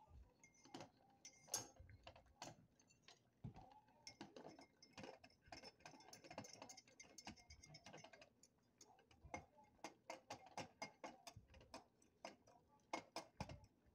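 Faint, irregular light ticks and clicks from a pot of water simmering on an electric stove with a glass Pyrex dish sitting in it.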